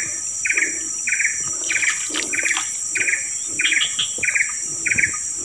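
Swamp insects calling: a steady high-pitched drone, with a buzzy chirp repeating a little under twice a second. Soft splashes of water come in now and then.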